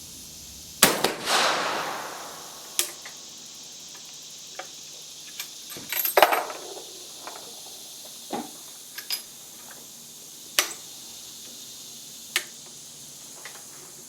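Two rifle shots from a Werndl single-shot rifle, about five seconds apart, each with an echo trailing off for a second or more. Lighter clicks and knocks come between and after them, typical of the breech being worked and the rifle reloaded.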